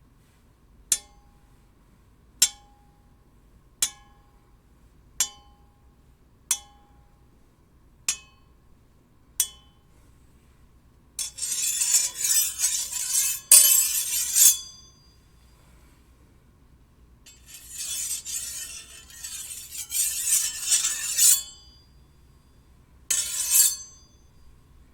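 Steel blades struck together seven times, about once every second and a half, each clink ringing briefly. Then one blade is scraped along another in two long grating strokes, and once more briefly near the end.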